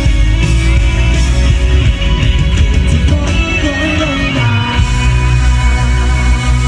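Rock band playing live at full volume, electric guitar over bass and drums, with no vocal line.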